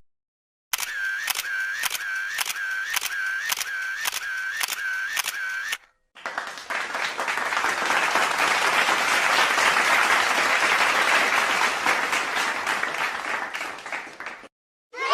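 Two sound effects in a row. First a rhythmic clicking, about two clicks a second over a wavering high tone, for about five seconds. Then applause that swells and fades away over about eight seconds.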